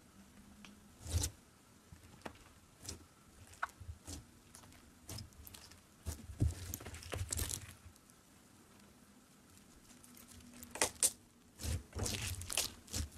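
Crunchy bead-filled slime squeezed and pressed by fingertips, giving irregular crackles and pops as the beads shift and the slime stretches. The crackling comes in louder clusters about halfway through and again near the end.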